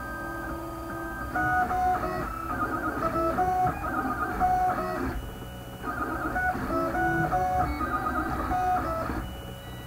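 Stepper motors of a wooden-frame 3D printer singing in pitched tones that jump from note to note as the print head moves while printing. The moves come in quick runs from about one to five seconds in and again from six to nine seconds, with a brief lull between, over a steadier tone at the start.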